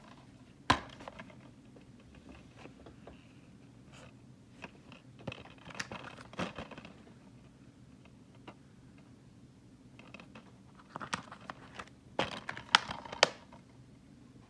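Hand handling noises on a desk: a plastic DVD case and its packaging being moved and opened, with sharp plastic clicks and snaps and short crinkling rustles in three clusters, over a steady low room hum.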